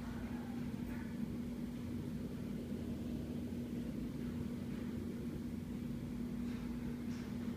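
Restroom exhaust fan running steadily: a constant hum with one clear tone over a low rush of air.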